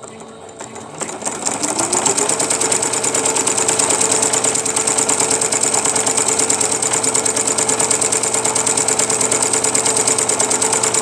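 Electric sewing machine stitching: the motor speeds up over the first couple of seconds, then runs at a steady fast rate with a rapid, even needle clatter, stopping just before the end.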